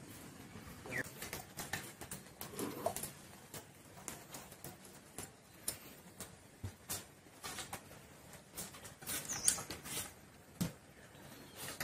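Quiet outdoor sounds: scattered light clicks and rustles, with a few short bird chirps.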